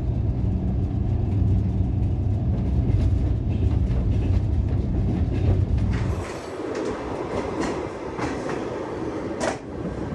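Train running on rails: a steady low rumble with clicking from the wheels. About six seconds in, the deep rumble drops away, leaving a lighter rattle with sharp clicks.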